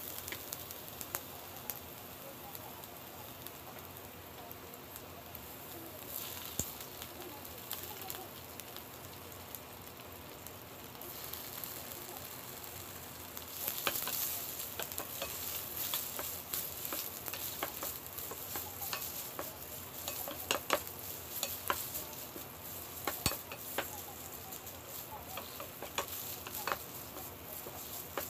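Oil sizzling in a non-stick frying pan as thin vegetable strips are stir-fried with a spatula, which taps and scrapes on the pan. About halfway through, blocks of konnyaku go in and the sizzling grows louder.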